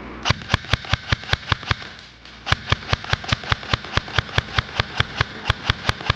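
Airsoft gun fired in rapid single shots, about five a second: a short string of sharp cracks, a brief pause, then a longer string.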